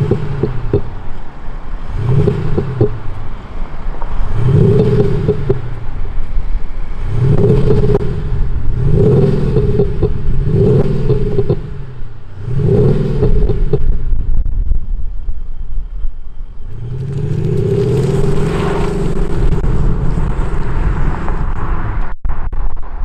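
Mercedes-Benz S350d diesel with a Cete Active Sound Unit, its exhaust sound actuators playing a deep AMG-style soundfile in dynamic mode: about six short revs in a row, then a longer rev near the end.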